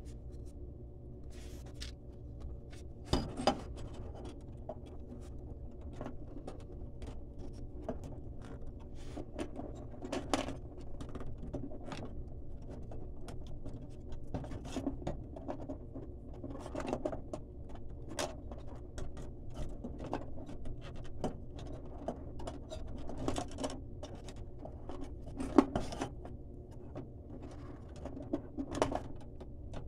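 Irregular clicks, taps and scrapes of a fluorescent ballast and its wires being handled and pulled inside a metal recessed light fixture, over a steady low hum.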